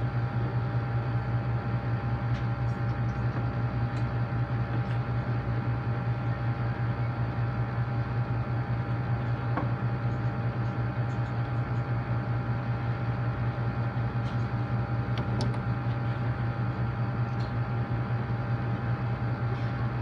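Amana packaged window air conditioner running with its compressor on: a steady low hum with a few fainter steady tones above it.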